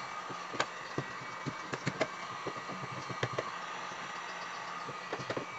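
Electric heat gun running steadily, its fan blowing hot air onto a polyethylene kayak hull to melt filler rod into a crack, with scattered sharp clicks over the steady blowing.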